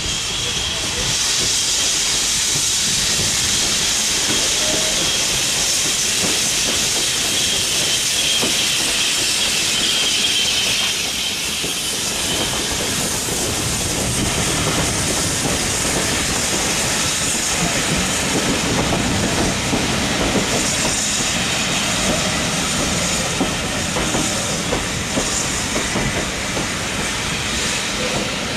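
Steam locomotive hauling a passenger train past, a steady hiss of steam strongest over the first twelve seconds or so. The coaches follow, their wheels rumbling and clattering over the rail joints.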